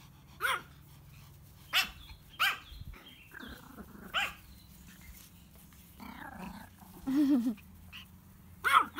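Small terrier barking: about half a dozen short, sharp barks spaced a second or more apart.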